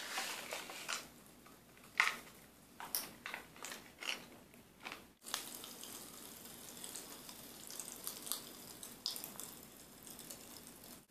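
Pop Rocks popping candy crackling and fizzing in two people's open mouths: a faint, irregular scatter of tiny pops and snaps.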